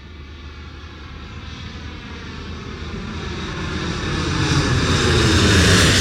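Boeing 747 jet airliner flying by on its approach, its four turbofan engines growing steadily louder. A whine of several evenly spaced tones bends slowly downward over a rising rush of noise.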